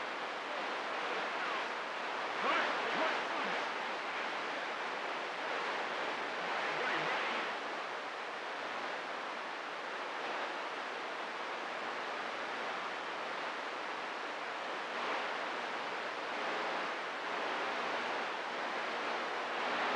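Steady hiss of CB radio static with no transmission coming through, and faint wavering traces about two to three seconds in, around seven seconds, and again in the last few seconds.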